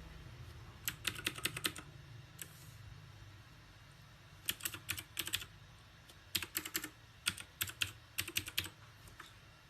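Typing on a mechanical keyboard: four quick runs of clacking keystrokes with short pauses between them.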